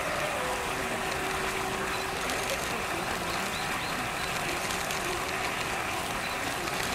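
Steady outdoor background noise with faint, indistinct voices of distant people murmuring.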